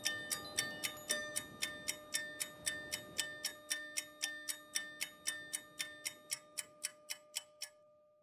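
Background music of steady clock-like ticking, about three ticks a second, over a few held notes, fading out gradually until the ticks stop near the end and a last note dies away.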